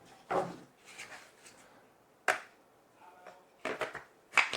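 Hard plastic sections of a plant caddy clicking and knocking as they are fitted together by hand: a sharp click a little past two seconds in, then a quick run of clicks near the end.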